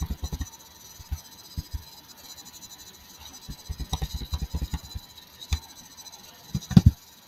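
Computer keyboard keys tapped in quick runs of dull clicks, stepping through a dropdown list. The longest run comes midway, and the loudest cluster of clicks comes near the end.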